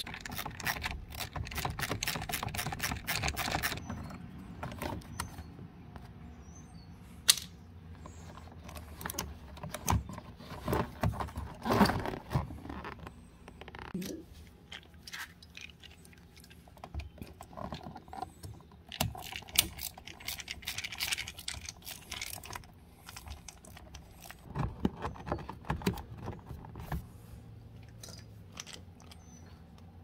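Small clicks, taps and rattles of hand tools on hard plastic trim: a screwdriver working the screws of a Fox Body Mustang's door lock and window switch panel, then pliers at the switch. A quick run of clicks fills the first few seconds, then scattered clicks and knocks follow.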